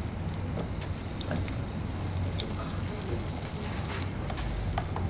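Hot oil sizzling around a battered mantis deep-frying in a small saucepan, with many scattered sharp crackles and pops over a steady low hum.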